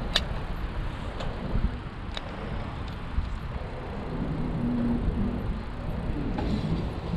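Bicycle rolling along a paved path, heard from a chest-mounted action camera: a steady low rumble of wind and tyre noise with a few sharp ticks and rattles.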